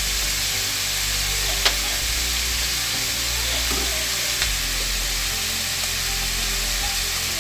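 Parboiled chicken pieces sizzling steadily as they fry in hot oil in a steel wok, with two light clicks.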